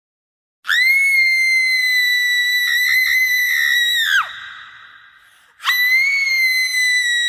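Two long, shrill, high-pitched screeches, a sound-effect clip. The first is held steady for about three and a half seconds and ends in a steep falling glide. The second starts again near the end and is still going.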